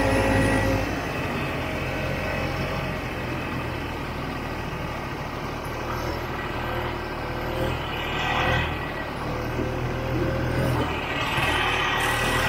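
1967 Ski-Doo Olympic snowmobile's two-stroke engine running steadily under way, growing louder briefly about eight seconds in and again near the end.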